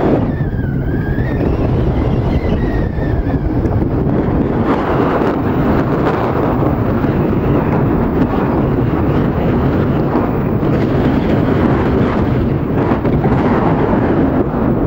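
Wind buffeting the microphone and running noise from a moving vehicle: a steady loud rumble and rush. A faint wavering tone rises and falls in the first few seconds.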